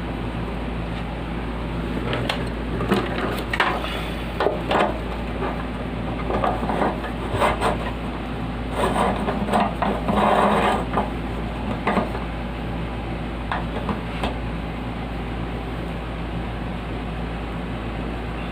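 Handling a box fan: scattered clicks and knocks of its parts with a stretch of rubbing and rustling about halfway through, over a steady low hum.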